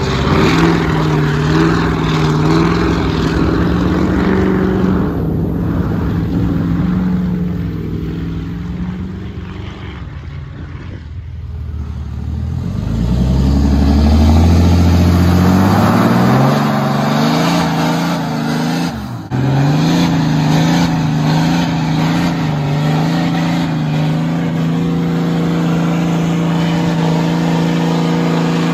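Diesel pickups doing burnouts. A lifted Ford F-250 Power Stroke's engine is held at high revs with its tires spinning on pavement. The sound then drops and a Ram Cummins engine revs up from low and holds a steady high pitch as its rear tires spin.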